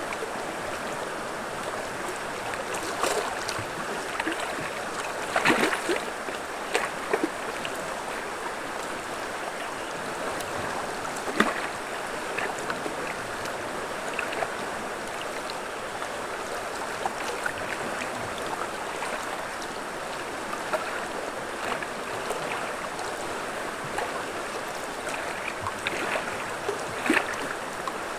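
River water rushing steadily over a rocky bed, broken now and then by short splashes, loudest about five seconds in, near eleven seconds, and again near the end.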